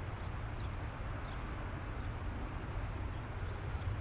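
Outdoor ambience: a steady low rumble with faint, short high-pitched bird chirps scattered through it.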